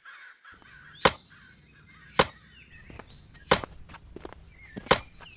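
Axe chopping a wooden log: four sharp strikes, about a second and a quarter apart.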